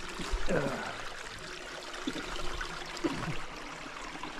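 Small forest creek trickling over stones and leaf litter, with faint voices twice in the background.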